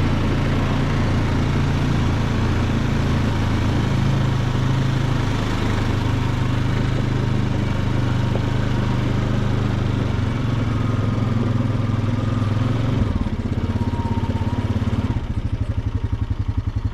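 Honda Rubicon ATV's single-cylinder engine running steadily under way, then easing off about thirteen seconds in and dropping to a slow, even low beat near the end.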